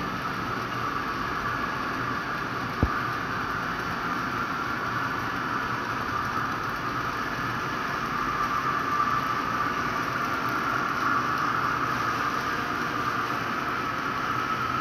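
HO-scale model freight train running past on its track: a steady whir and rolling of small wheels on the rails, with a single sharp click just under three seconds in.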